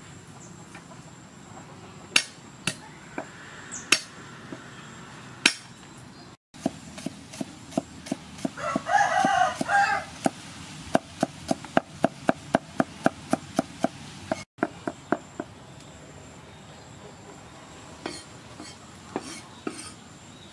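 Cleaver chopping garlic on a round wooden chopping board: a few single knocks, then a quick, even run of chops at about three a second. A rooster crows once in the middle of the chopping.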